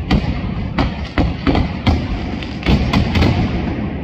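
Engraellat mascletà: black-powder-filled metal weights on the ground, linked by a traca fuse, going off in an irregular run of heavy bangs, about two or three a second, over a continuous low rumble.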